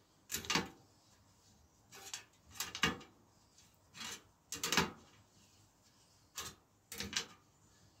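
A spoke key turning the spoke nipples of a bicycle wheel being tensioned in a truing stand: a series of about seven short, irregular clicks and creaks from the key, nipples and spokes.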